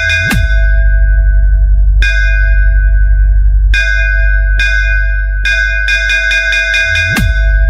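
Bass-boosted electronic dance track: a bell-like melody of repeated struck notes over a heavy, steady sub-bass, with a bass sweep falling in pitch about a third of a second in and again near the end.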